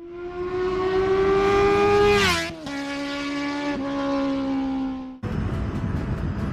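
Motorcycle engine at high revs, its note climbing for about two seconds, then dropping sharply at an upshift and holding steady at a lower pitch. About five seconds in it cuts off abruptly to a steady rush of wind and road noise.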